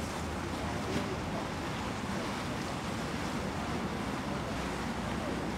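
Choppy sea water sloshing and washing around a small boat, with wind on the microphone and a low steady rumble underneath.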